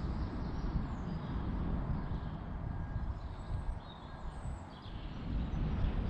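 Wind buffeting the microphone in an uneven low rumble, with a few faint bird chirps in the background.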